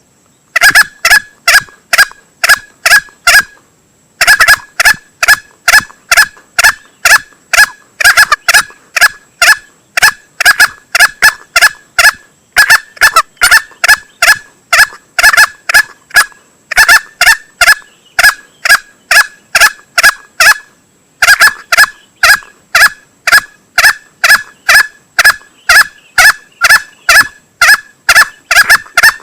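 Lure recording of a male green junglefowl calling: short, sharp calls repeated about three times a second in long runs, broken twice by a brief pause.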